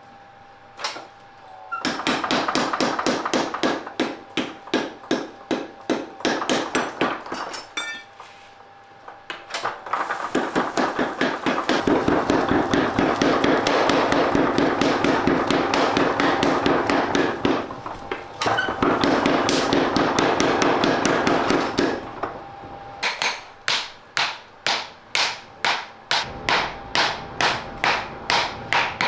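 Hammer blows striking a red-hot block of steel on an anvil as it is forged and folded. They come in fast, even runs of many blows, then near the end slow to separate strikes about two a second.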